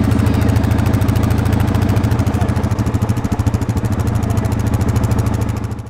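Quad (ATV) engine idling steadily, then fading out near the end.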